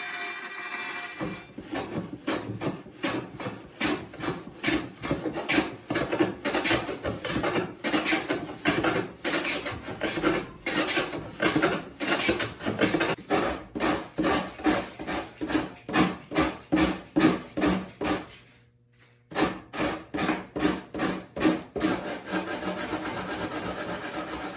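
A hand tool working wood in quick, even back-and-forth strokes, about two or three a second, with a short pause about three-quarters of the way through.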